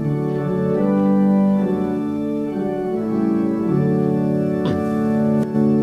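Church organ playing sustained chords as the introduction to a congregational hymn, changing chord every second or so.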